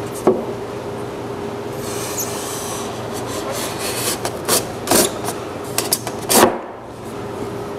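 Wooden legs and braces of a folding cedar table being folded down into its frame: boards sliding and rubbing about two seconds in, then a series of wooden knocks as the legs drop into place, the loudest about six seconds in. A steady hum runs underneath.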